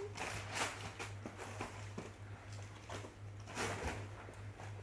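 Irregular rustling and handling of a package's wrapping as it is opened.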